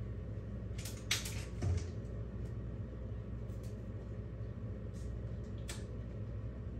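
A few short, light clicks and rustles about a second in, just before two seconds and near six seconds, over a steady low hum.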